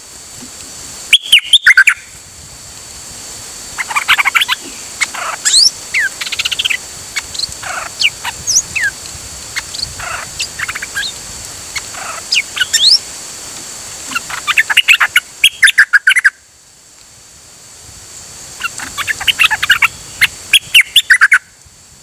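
Songbird singing, the bird called nok dok taeng in Thai: clear whistled phrases with rising and falling notes, broken by three loud bursts of rapid chattering notes. The last two bursts cut off suddenly.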